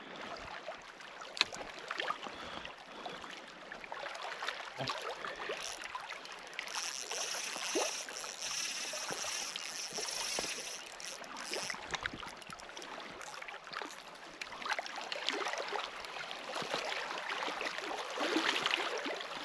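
Small waves lapping on a stony lakeshore under light wind, with a spinning reel being wound in to retrieve a lure and a few small clicks; a steadier high whir stands out for a few seconds in the middle.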